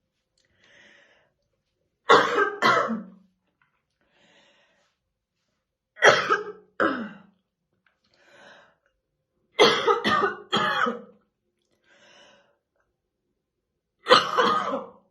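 A woman's heavy, deep smoker's cough in short bouts: two coughs about two seconds in, two more around six seconds, three close together near ten seconds, and one longer cough near the end.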